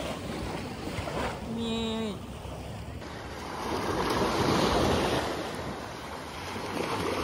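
Small waves breaking and washing up on a sandy beach, swelling to a surge about halfway through and building again near the end. There is some wind on the microphone.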